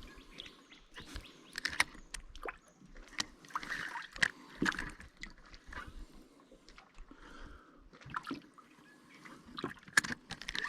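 Water sloshing and trickling in a small boat, broken by irregular light knocks and clicks as bait and fishing gear are handled.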